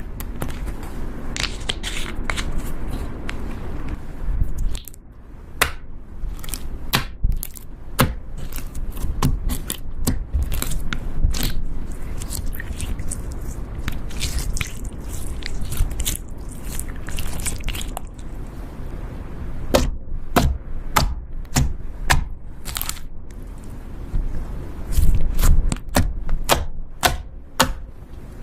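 Slime being squished and stretched by hand, making irregular crackling pops and clicks over a low rumble.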